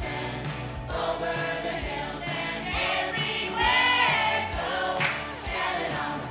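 A children's choir singing a Christmas song over a backing track with a steady beat, with a loud held note about three and a half seconds in.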